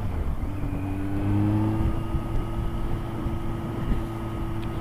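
Kawasaki Z900 inline-four motorcycle engine running under way on the road, its pitch rising over the first second or so and then holding steady, over a low rumble.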